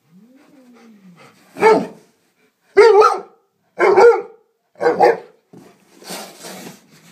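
Young Alaskan Malamute barking four times, short play barks about a second apart, directed at a cat it is trying to get to play. A short hiss follows near the end.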